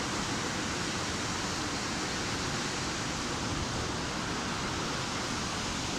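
Steady rushing noise of a fast mountain river flowing over rocks.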